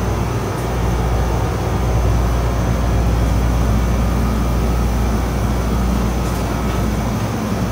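Steady low hum of supermarket refrigerated display cases, an even machine drone with no change.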